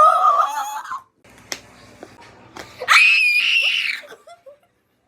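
A female voice squealing twice in reply to a face being made: a first squeal that ends about a second in, then a much higher, shriller one about three seconds in that lasts about a second.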